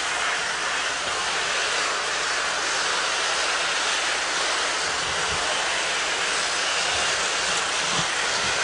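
Steady rushing, hissing noise at an even level, with a few low thumps about halfway through and near the end.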